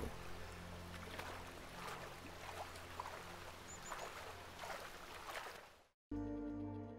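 Shallow river running over a gravel bed, a steady low babble of water that fades out near the end, followed by soft music starting.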